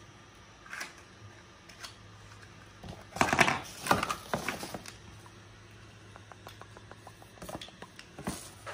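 Handling noise: plastic bags and packaging rustle and crinkle in a loud spell of about a second and a half a few seconds in, followed by a run of small light clicks, over a low steady room hum.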